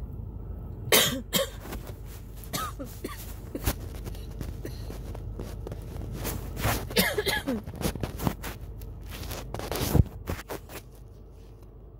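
A person coughing in several separate bouts, harsh coughs with breaths between them, the loudest near the end: a throat tickle that has turned into a coughing fit.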